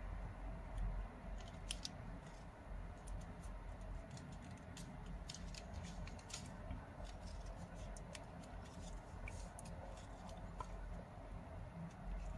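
Origami paper crinkling and crackling as fingers pinch and bend a thin point of a folded paper crane: faint, scattered small crisp clicks over a low steady hum.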